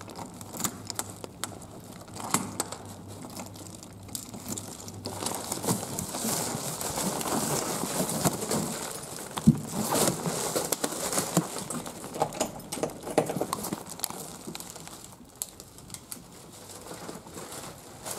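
Someone letting themselves into a hotel room: clicks and knocks from the door's lever handle and latch, then rustling of carried bags and footsteps, with scattered sharp knocks, the loudest about ten seconds in.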